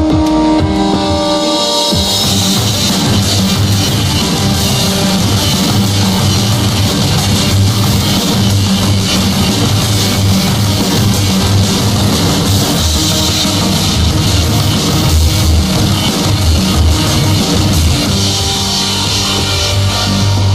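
Rock background music: sustained guitar chords at first, then a full drum kit comes in about two seconds in and plays on with the guitar.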